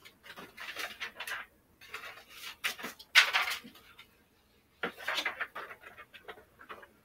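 Irregular rustling and light clatter of items being handled and moved on a shelf, in short uneven bursts with the loudest a little after three seconds in.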